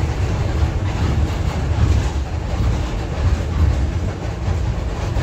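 Loud, steady low rumble of a city bus's engine and running gear, heard from inside the cabin.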